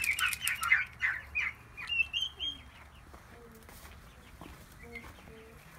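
Chickens clucking: a quick run of short clucks in the first two seconds, then quieter with a few soft calls.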